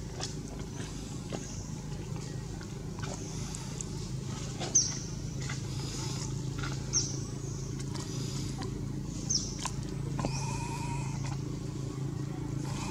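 A steady low hum with three short, very high-pitched squeaks spaced about two seconds apart, the first the loudest. Near the end comes a brief held whistle-like tone.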